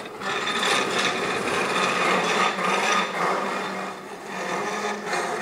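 Continuous rasping, scraping rumble of a replica 1912 B.E.2 biplane being pushed by hand across a concrete hangar floor, easing off near the end.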